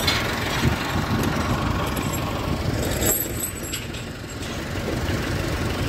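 Diesel farm tractor engine running close by.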